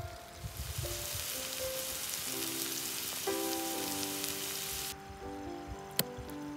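Pumpkin slices frying in oil in a pan, a steady sizzle that stops abruptly about five seconds in. A single sharp click follows about a second later.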